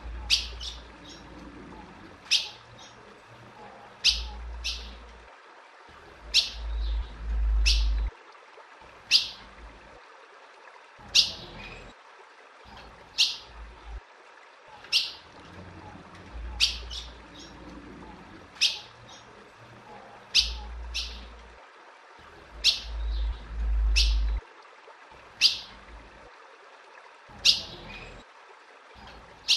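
Female ultramarine grosbeak (azulão) calling repeatedly, each call a single short, sharp, falling chip, one every second or two. A low rumble sits underneath at times.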